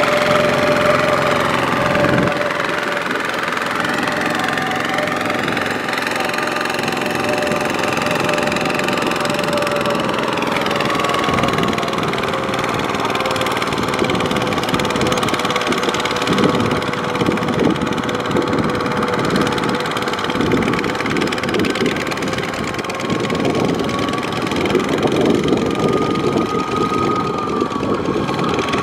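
Kubota two-wheel walking tractor's single-cylinder diesel engine running under load as it hauls a loaded trailer through deep mud. The engine speed drifts up and down slightly.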